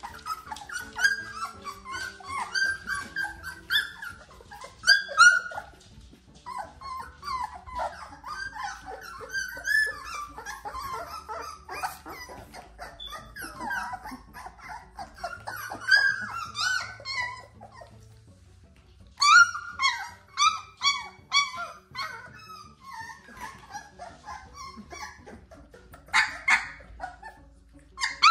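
Young puppies whining, yipping and squealing as they play, many short high calls overlapping one another. There are brief lulls about six seconds in and again around eighteen seconds, and a sharper yelp near the end.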